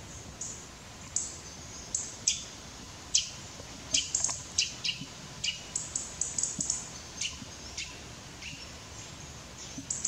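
European robin calling: short, sharp, high notes in an irregular series, coming thickest about halfway through.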